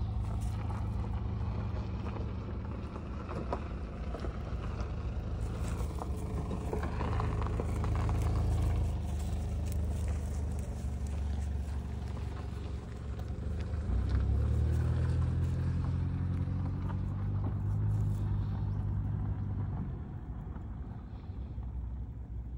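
A motor engine running with a low, steady hum; about 13 seconds in it rises in pitch and gets louder, then it drops off near the end.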